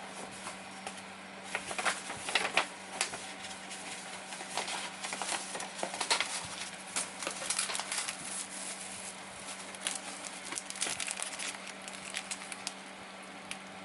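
Plastic bags crinkling and rustling with irregular light clicks as bagged resin model-kit parts are handled.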